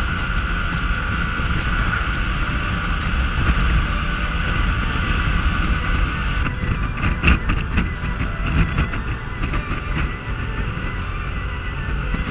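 Riding noise from a Yamaha NMAX 155 scooter at speed: wind rushing over the microphone, with the single-cylinder engine and belt drive running. A steady whine is heard in the first half, and after about six and a half seconds it gives way to rougher buffeting with clicks.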